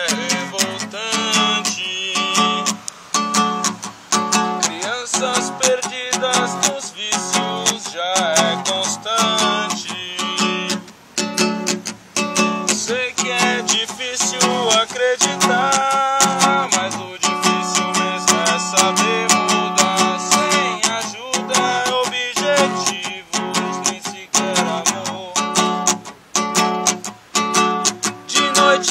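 Acoustic guitar strummed in a reggae rhythm, a steady pattern of chord strokes.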